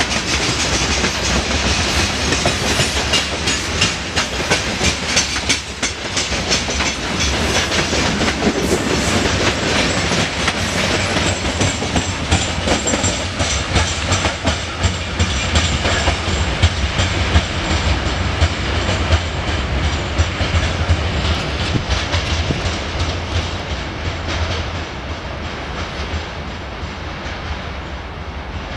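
Freight train of covered hopper wagons passing close by, wheels clattering rhythmically over the rail joints. In the last several seconds the sound fades as the end of the train draws away.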